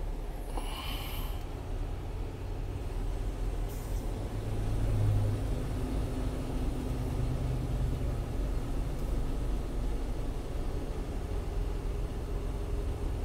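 Semi-truck's diesel engine running low inside the cab as the truck creeps along in slow traffic, the rumble swelling about four to five seconds in as it pulls forward. A short hiss about a second in.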